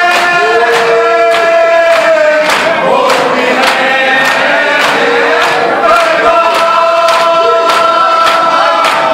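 A crowd of men chanting a Shia mourning lament in unison, held notes gliding from one pitch to the next, while they beat their chests (matam), the hand slaps landing as sharp strokes in a steady rhythm a few times a second.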